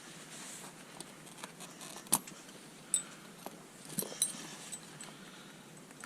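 Steel tire chain links clinking a few times, short and light, as the chain is handled and shifted on the tire.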